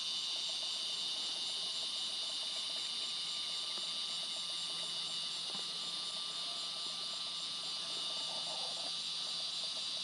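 Steady high-pitched chorus of insects, unbroken throughout.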